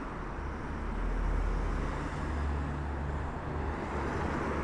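A motor vehicle's engine running close by with road noise: a steady low rumble that swells slightly about a second in.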